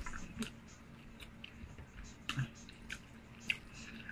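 Faint wet eating sounds from someone eating fufu and egusi soup: scattered soft squishes, smacks and small mouth clicks, over a faint steady hum.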